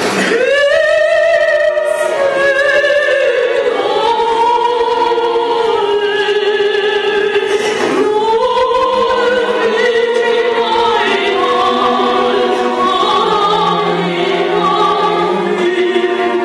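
Operatic soprano singing with an orchestra, in long held notes with wide vibrato across several phrases. It is played back from a video over room speakers.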